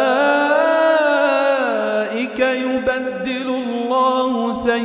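A solo male voice reciting the Quran in a slow, melodic chant, drawing out one long ornamented note that slides down about two seconds in, then moving through shorter wavering notes.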